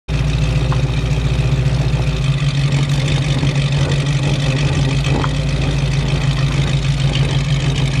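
1969 Ford Mustang's V8 engine and exhaust running steadily at low revs as the car rolls slowly.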